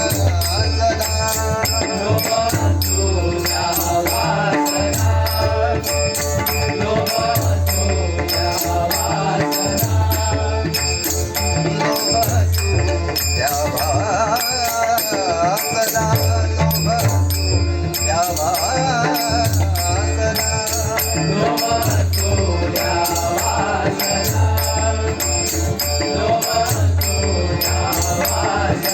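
Marathi devotional bhajan music in raga Bhairavi: a wavering melody over a steady, repeating drum beat, with a constant run of quick metallic cymbal or jingle strokes.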